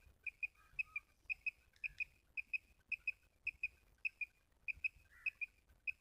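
Quail call sounded by hand in quick pairs of sharp, high chirps, about two pairs a second in a very even rhythm, to lure wild quail toward a net.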